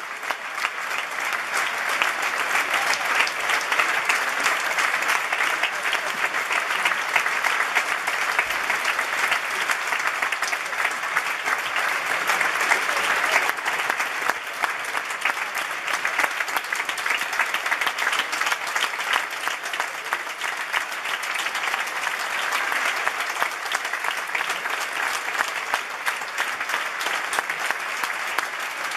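Theatre audience applauding steadily, a dense sustained clapping from a large crowd.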